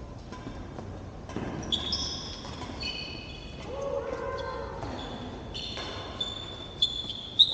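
Sports shoes squeaking in short, high chirps on the hard court floor as badminton players move and change direction, with faint voices in the background and a sharp smack near the end.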